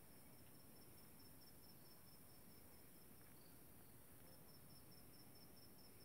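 Faint insect chirping in woodland: a thin, high-pitched chirp repeated evenly about five times a second, pausing for about a second a little after halfway, over quiet background hiss.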